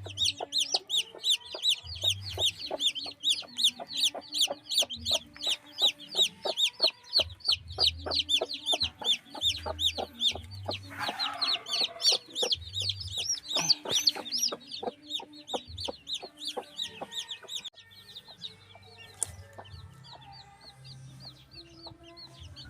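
Newly hatched chicks peeping, a fast stream of high, falling peeps, several a second, growing fainter for the last few seconds.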